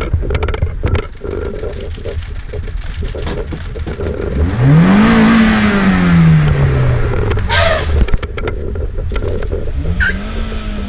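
Safari vehicle's engine idling. A loud sound rises and then slowly falls in pitch for about three seconds near the middle, and a shorter one like it comes near the end.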